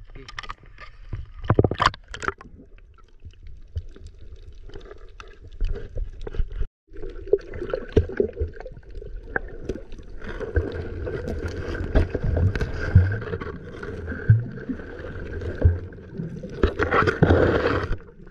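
Water noise and handling knocks on a GoPro, then, after a cut about seven seconds in, the muffled rumble and gurgling of the camera underwater, with many small knocks and a louder rush of water near the end.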